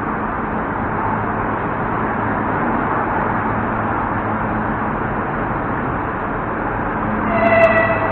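Steady platform noise with a low hum beside a standing electric train, then a short, high horn toot about seven seconds in, lasting under a second.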